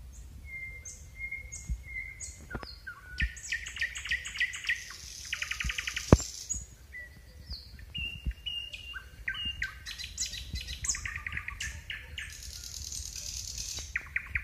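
Several songbirds singing together: short high notes, level whistles and rapid rattling trills overlapping throughout. Scattered low knocks run under the song, the sharpest about six seconds in.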